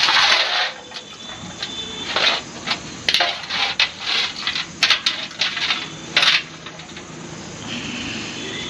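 Small metal parts clinking and clattering as they are handled and set down: a string of sharp knocks and clinks, the loudest at the very start and around three, five and six seconds in.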